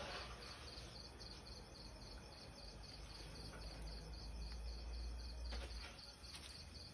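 Faint cricket chirping in a rapid, even pulse, with a low rumble underneath.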